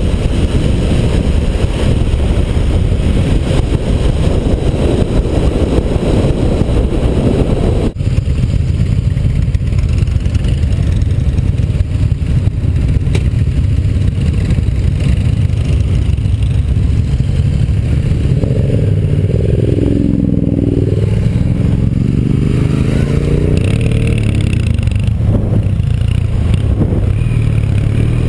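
Motorcycle riding at road speed: a steady engine rumble under heavy wind noise on the microphone. Around two-thirds of the way through, an engine note rises and falls several times.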